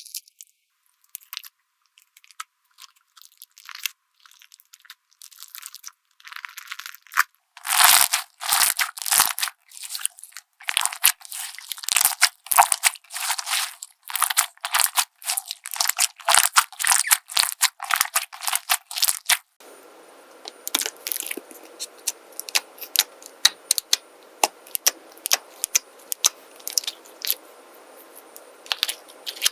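Slime being squeezed and pressed, giving quick strings of crackling, crunching pops. It is sparse and soft at first, grows dense and loud about eight seconds in, and after about twenty seconds thins to scattered pops over a faint hiss.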